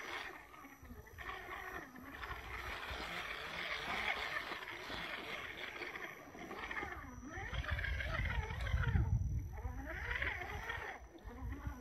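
Electric motor and gear drive of a radio-controlled rock crawler whining as it crawls, its pitch rising and falling with the throttle. A low rumble joins in from about two-thirds of the way through.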